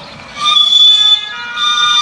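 Miniature steam locomotive's whistle giving two blasts, each under a second long, with a brief gap between them.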